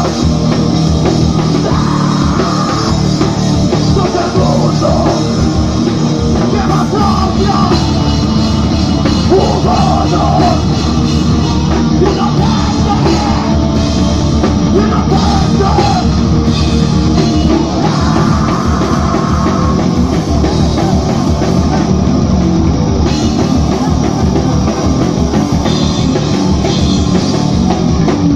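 Live heavy punk/metal band playing loud and steady, with distorted electric bass and guitar and a drum kit, and shouted vocals coming in at times.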